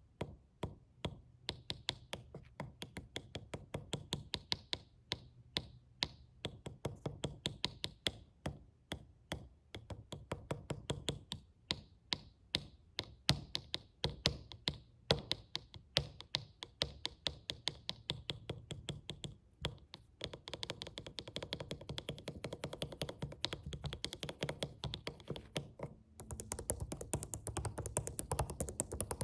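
Fingers tapping on a suitcase: a run of quick, crisp taps, several a second, becoming denser and more continuous in the last third.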